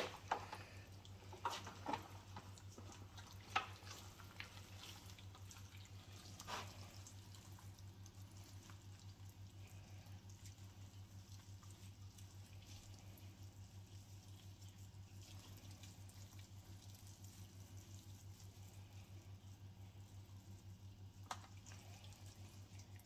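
Gloved hands pulling apart a tender smoked lamb shoulder in a foil tray: faint wet squelching of meat and juices, with a few sharp clicks in the first seven seconds and one more near the end. A steady low hum runs underneath.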